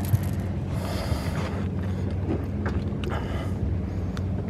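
Steady low hum from the fishing boat's motor, with short scuffing noises about a second in and again around three seconds in.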